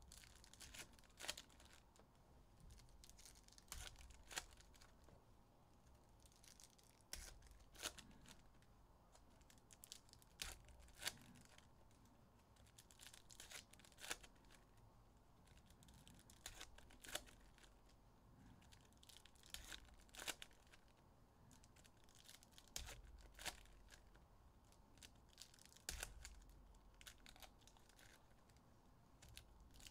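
Foil wrappers of Panini Illusions football card packs being torn open and crinkled by hand, with cards handled and stacked. Quiet overall, with irregular sharp crackles every second or two.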